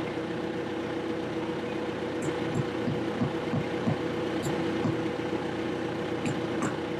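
A motor or engine running steadily, giving a constant hum.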